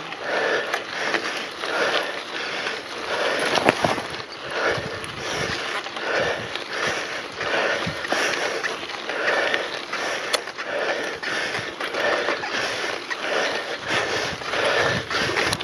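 Mountain bike climbing a dirt track: tyre and bike rattle with the rider breathing hard in a steady rhythm, a breath about every second or less, and a couple of sharp knocks from bumps around 4 and 10 seconds in.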